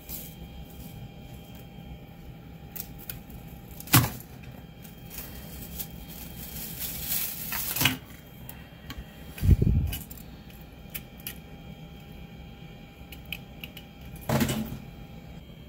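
Hands prying and snapping PLA print pieces off a 3D printer's build plate: scattered plastic clicks, a sharp crack about 4 s in, a scrape that builds for a couple of seconds, a dull thump, and another crack near the end, over a steady faint hum.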